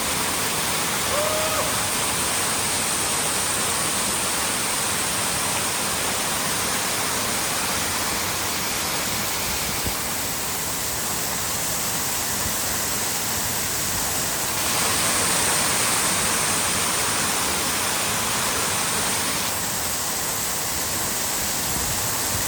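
Waterfall: a steady, dense rush of falling water, growing a little louder and brighter for a few seconds about two-thirds of the way through.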